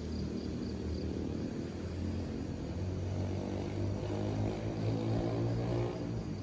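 Low, steady engine drone of distant traffic, swelling slightly after about three seconds. An insect chirps in a quick regular pulse during the first second.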